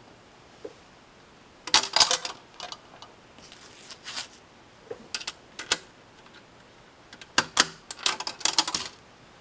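Scattered metallic clicks and clinks as nickels are handled, then a quick run of clicks near the end from the 1946 Packard 'Butler' wallbox's selector knob being turned to choose a song.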